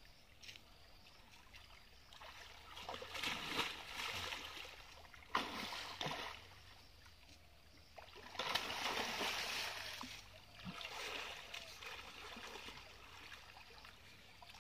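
Water splashing and sloshing as people wade chest-deep and sweep their arms through a river. It comes in several bursts a second or two long with quieter gaps between, one starting with a sudden splash near the middle.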